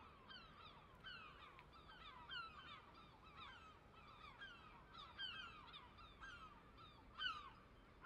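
A flock of birds calling: many short, falling calls overlapping, several a second, faint.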